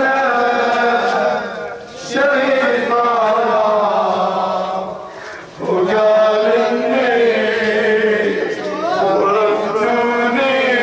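A man chanting a Shia lament (latmiyya) into a microphone, amplified, in long held melodic lines, with short breaks for breath about two and five and a half seconds in.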